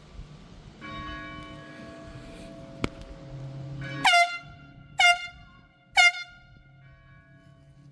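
Diaphragm air horn giving three short blasts about a second apart, each starting with a quick upward swoop in pitch: a noon signal. Before them, a fainter steady tone of several notes sounds for about three seconds.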